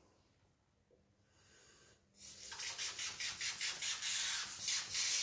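Aftershave sprayed from a glass bottle with a rubber squeeze-bulb atomizer: a quick run of hissing puffs, about three a second, starting about two seconds in.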